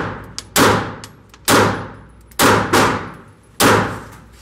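Taurus G3 Tactical 9mm pistol fired in a steady string of about five shots, roughly one a second. Each shot has a long echoing tail that dies away in the indoor range.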